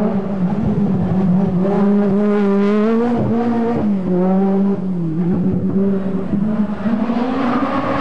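Peugeot 205 T16 Group B rally car's turbocharged four-cylinder engine pulling hard at high revs as the car passes. The note climbs, breaks briefly about three seconds in and drops again near five seconds as the driver changes gear or lifts.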